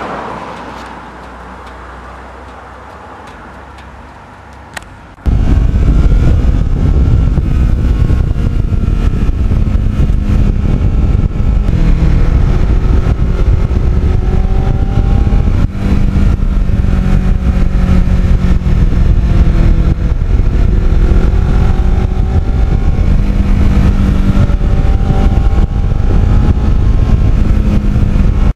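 Riding on a Kawasaki Ninja 650R motorcycle, heard from a handlebar-mounted camera: heavy wind rush on the microphone over the parallel-twin engine, whose note rises and falls with the throttle. It cuts in suddenly about five seconds in, after a quieter fading rush.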